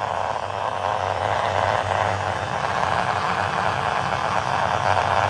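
Xiaomi electric toothbrush running in its heavy mode: a steady motor buzz, vibrating hard.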